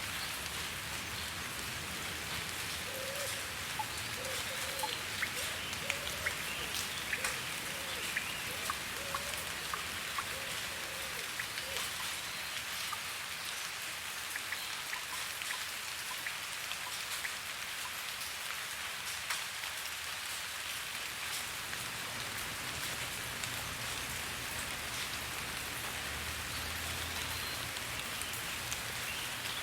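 Steady rain falling, with individual drops ticking sharply on a hard surface over the even hiss, the drop hits most frequent in the first dozen seconds.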